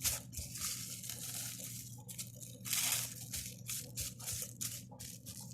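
Plastic cling film crinkling and rustling as it is pulled and pressed down over a bowl of lemon cream, in many short irregular bursts with one longer rustle about three seconds in.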